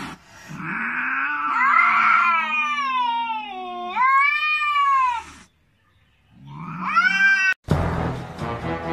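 Domestic cats caterwauling: long, wavering yowls that rise and fall in pitch, a short pause, then another yowl. About three-quarters of the way in the yowling is cut off by background music.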